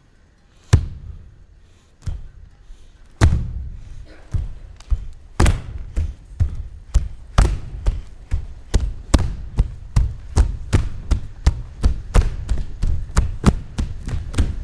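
Bare feet stamping on a stage floor: a few single thuds in the first three seconds, then from about five seconds in a steady beat of about two to three stamps a second.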